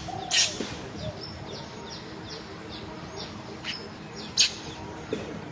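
Birds chirping: a run of short, high, falling chirps, with two louder, sharp calls, one just after the start and one near the end.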